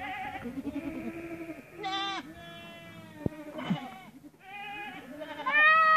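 Goats bleating, a string of separate wavering calls, sometimes two overlapping at different pitches, the loudest near the end. A single sharp tap about three seconds in.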